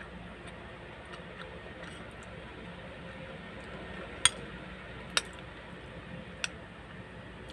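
Metal spoon clinking against a ceramic bowl three times, about a second apart, as pasta is scooped, over a steady low hum.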